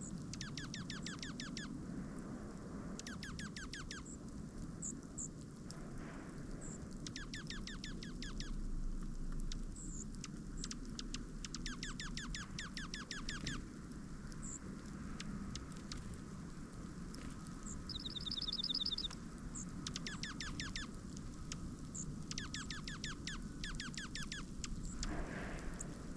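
Small birds calling at a winter feeder: repeated quick runs of nasal notes, each run lasting about a second, with a brief high trill about two-thirds of the way in and a few single high chips, over a steady low rumble of background noise.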